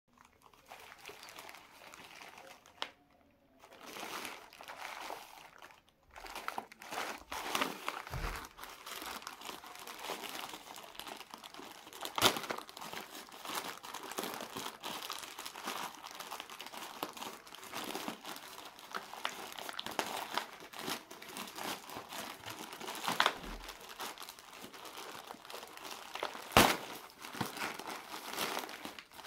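Plastic Flipkart courier mailer being crinkled and torn open by hand: sparse rustles at first, then steady crinkling from about six seconds in, with a couple of sharp snaps, the loudest near the end.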